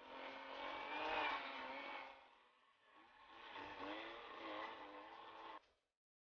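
Two-stroke chainsaw engine revving up and down in two long swells as it cuts, with the pitch rising and falling. It stops abruptly near the end.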